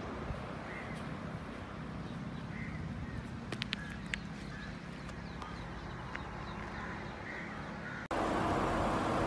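Steady outdoor background noise with a bird calling three times and a few faint clicks, then a sudden switch about eight seconds in to louder steady noise with a low hum.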